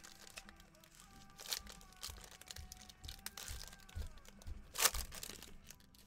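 Foil trading-card pack wrapper crinkling and tearing as it is opened by hand: a run of sharp crackles, with a louder crackle about a second and a half in and the loudest near the end.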